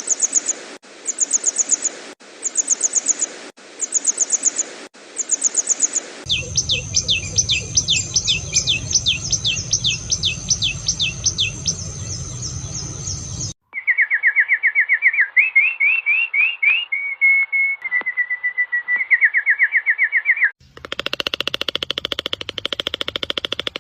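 A succession of different recorded bird calls. First come short high trills repeated about every second and a half, then a long run of rapid high notes. After that come lower trilling phrases, and near the end a buzzy, fast-pulsing call.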